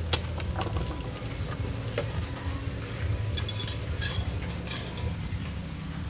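Light handling noises on a wooden workbench: a few faint clicks and taps of small tools and parts being moved, over a steady low hum.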